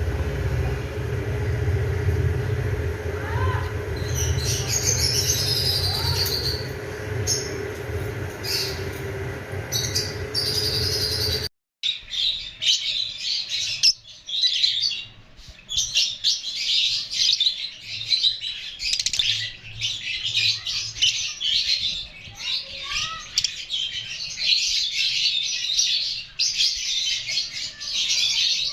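For about the first twelve seconds, a steady low hum with a few scattered bird chirps. Then, after a sudden cut, a dense, nonstop chorus of parrot chicks chirping and squawking.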